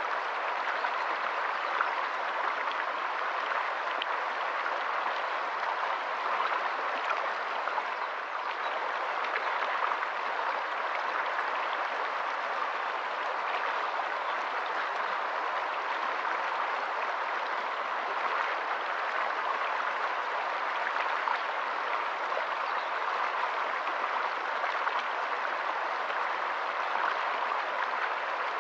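Shallow rocky stream running over stones in small rapids: a steady rush and splash of flowing water.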